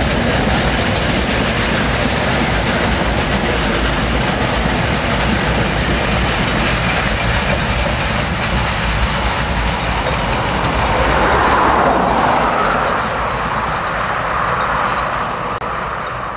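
Steam-hauled passenger train passing close by: the locomotive's rumble and the carriages' wheels rolling over the rails. It is loudest about two-thirds through, then fades as the train draws away near the end.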